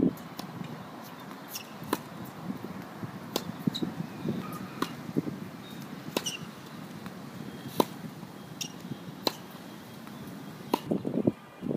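Tennis balls hit with a racket and bouncing on a hard court: a series of sharp knocks every second or two. Wind buffets the microphone near the end.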